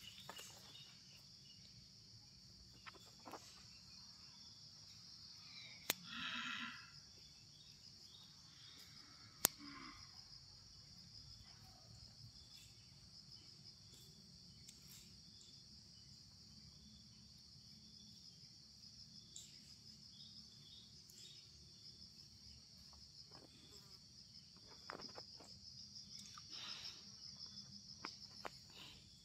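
Faint, steady, high-pitched drone of insects, with a sharp click or two and a brief louder noise about six seconds in.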